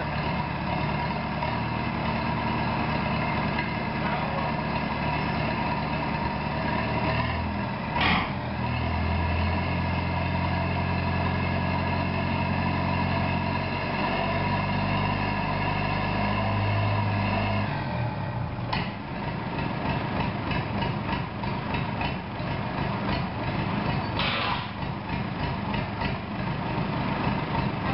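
Bedford four-cylinder diesel engine running, its speed shifting a few times. About eighteen seconds in, the steady engine note gives way to a slower, uneven pulsing beat.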